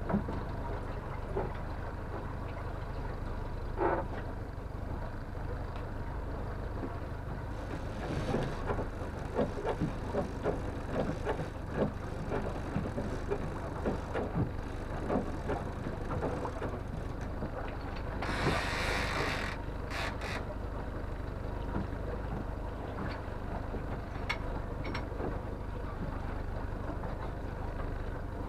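Honda outboard motor running steadily, pushing the boat at trolling speed, with scattered knocks and clatter of gear in the boat and a brief loud hiss about two-thirds of the way through.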